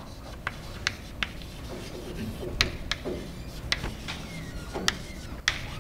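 Chalk writing on a blackboard: irregular sharp taps and short scrapes as the chalk strikes and drags across the board.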